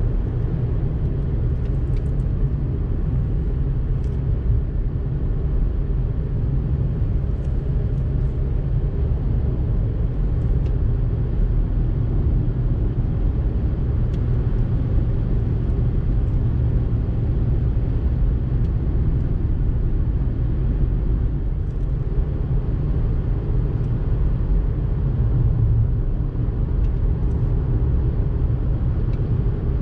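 Steady low rumble of a car's tyres and engine heard inside the cabin while driving at road speed, with a few faint clicks.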